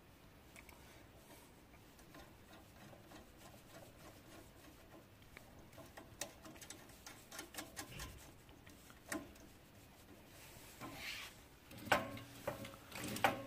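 Small metal clicks and rubbing as fingers fit and tighten the ball-joint end of an air rod onto a sewing-machine foot pedal, then a few louder knocks of the pedal being pressed near the end.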